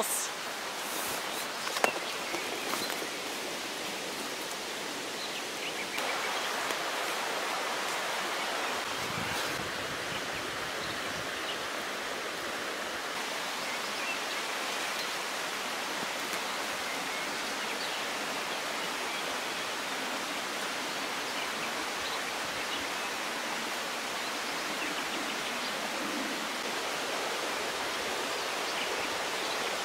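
Steady rushing of a river, an even hiss of flowing water that gets louder about six seconds in. There are a few light clicks and one sharp knock in the first two seconds.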